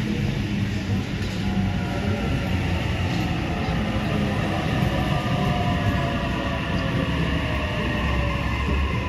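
Sydney Trains double-deck electric train moving along the platform: a steady whine from the electric drive over continuous low wheel-and-rail rumble.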